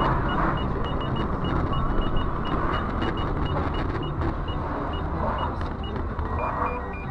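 Steady vehicle road noise with a train of short, high-pitched electronic beeps repeating every fraction of a second at uneven spacing.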